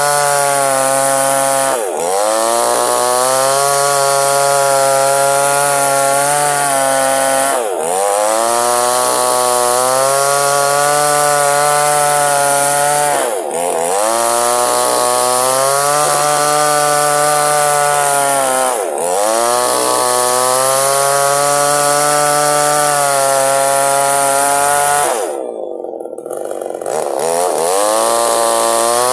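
Small chainsaw running at full throttle while cutting a log lengthwise to split it in two. Its engine speed dips briefly and recovers about every five to six seconds. Near the end it drops to idle for about two seconds, then revs back up.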